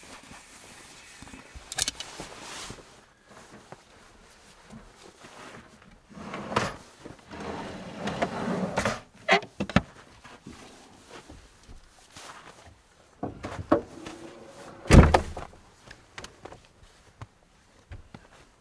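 Gear being handled and put away: scattered knocks, clunks and rustling, with one heavy thump about fifteen seconds in.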